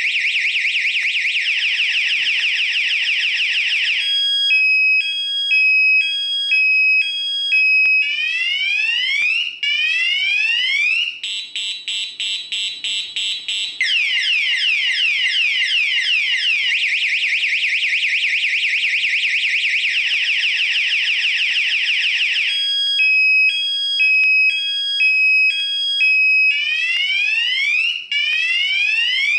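AAS security alarm system's electronic siren sounding, cycling through a fast warble, a high-low two-tone, rising whoops and a rapid pulsed tone. The sequence repeats about halfway through.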